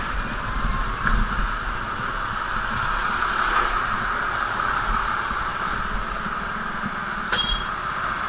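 A vehicle on the move, giving a steady hiss and low rumble of engine and road noise, with two brief clicks, one about a second in and one near the end.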